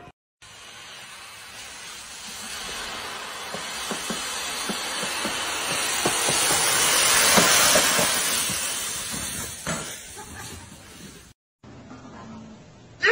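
Thick layer of dry fallen leaves rustling and crunching as a bike ploughs down through them, growing louder to a peak about seven to eight seconds in and then fading. It cuts off suddenly about eleven seconds in.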